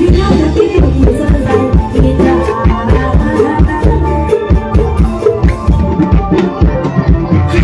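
Loud amplified band music for a molam stage show: a steady driving drum beat with heavy bass and a melodic instrumental line on top, no singing.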